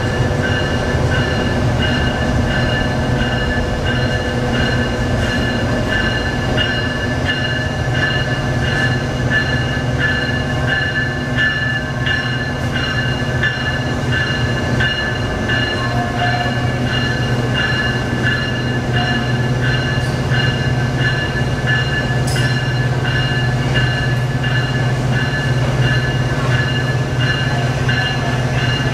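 Amtrak locomotives running at the station tracks: a steady low hum with a thin, steady high whine over it, unchanging throughout.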